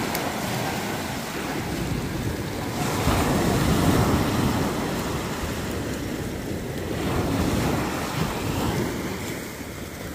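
Small surf breaking and washing up a sandy beach, swelling louder about three seconds in and again about seven seconds in, with wind on the microphone.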